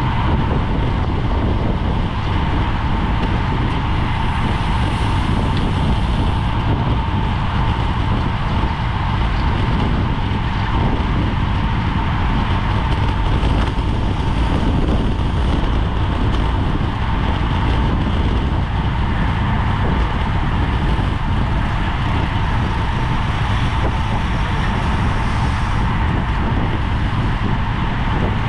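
Steady wind rush buffeting a GoPro's microphone on a bicycle at race speed, heavy and even throughout, with a thin steady whine running through it.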